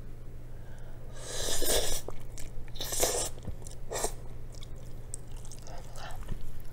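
A person slurping up mouthfuls of ramen noodles and chewing them. A long, loud slurp comes about one and a half seconds in, then two shorter slurps, then quieter chewing.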